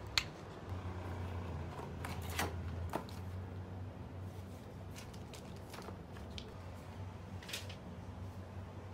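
Cardboard packaging and paper of a Bluetooth speaker being handled during unboxing: a few brief, scattered rustles and clicks over a low steady hum.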